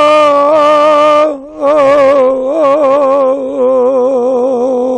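An elderly man chanting a Kashmiri marsiya (elegy for Imam Hussain) unaccompanied, drawing a single syllable out into long held notes with wavering ornaments. It breaks briefly about a second and a half in, then goes into another long held phrase.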